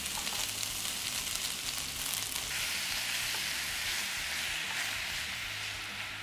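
Onion and chicken frying in sesame oil in a pan on high heat: a steady sizzle with fine crackling, turning into a denser, even hiss about two and a half seconds in.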